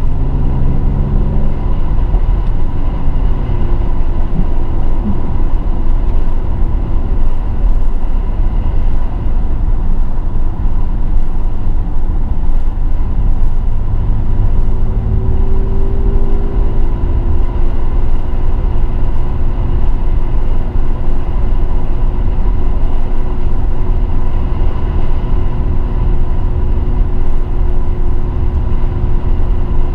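Mercedes-AMG GLE 43's twin-turbo V6 and tyre rumble while driving. The engine note drops over the first few seconds and climbs again about halfway through.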